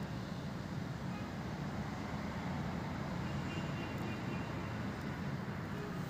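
Steady low background rumble with no speech, with a faint brief high tone a little past the middle.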